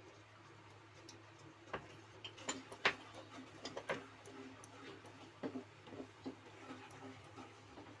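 Wooden spatula stirring thick tomato masala in a nonstick kadhai, with irregular light clicks and taps as it knocks and scrapes against the pan.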